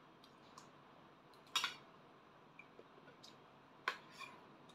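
A metal spoon clinks against a small stainless-steel bowl while someone eats, with two sharp clinks about two seconds apart and a few faint taps between them.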